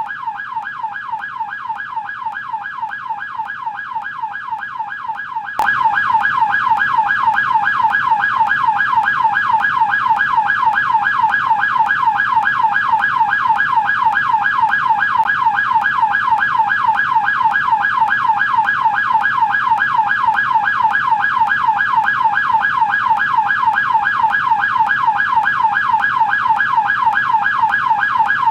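American police car siren on the yelp tone: a rapid, evenly repeating up-and-down wail. About five and a half seconds in, it suddenly gets louder and fuller.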